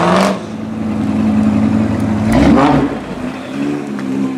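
Audi RS6 Avant's twin-turbo V8, tuned to 740 hp with a Milltek exhaust, running at low revs as the car pulls away, with one quick rev about two and a half seconds in; the engine is quieter near the end.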